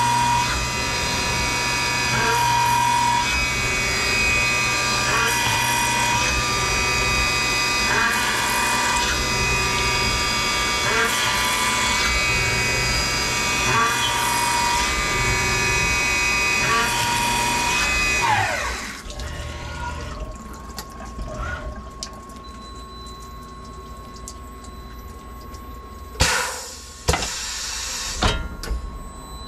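Tormach 1100MX CNC mill spindle running at 7,200 RPM, drilling a row of holes in aluminum with flood coolant spraying; its tone shifts every couple of seconds as it moves from hole to hole. About 18 seconds in the spindle winds down with a falling whine, and near the end the automatic tool changer makes a few short loud bursts as it swaps in the tap.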